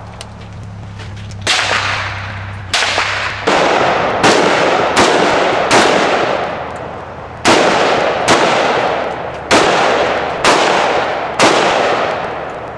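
AR-style semi-automatic rifle firing about a dozen single shots at an uneven pace, roughly one a second, each shot followed by a long echoing tail.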